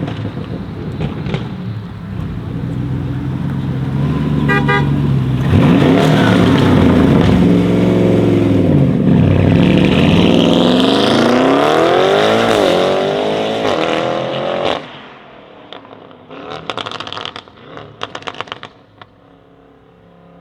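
Tuned 750 hp Audi RS7 Sportback C8's twin-turbo V8 under hard acceleration, its exhaust loud and its pitch climbing, then cutting off suddenly about 15 seconds in. A few seconds of sharp exhaust crackles and pops follow before it settles to a quiet low idle.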